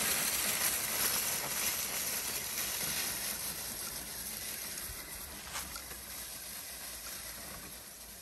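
1:10 scale Laegendary Grando RC crawler climbing a steep grassy hill, its brushed electric motor, drivetrain and tyres making a steady noisy sound that fades gradually as the truck moves away up the slope.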